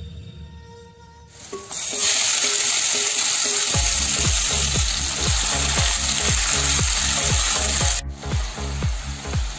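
Diced raw beef sizzling loudly in hot oil in a pot. The sizzle starts about a second and a half in and drops off sharply near the end.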